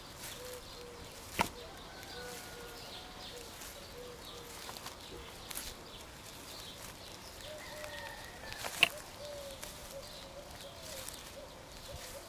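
Outdoor rural ambience with birds calling faintly on and off. Two sharp clicks stand out, one about a second and a half in and another about two-thirds of the way through.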